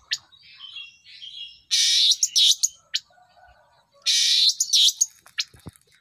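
Caged long-tailed shrike calling: soft twittering at first, then two loud, harsh bursts of chattering calls, about two seconds in and again about four seconds in. A couple of faint knocks come near the end.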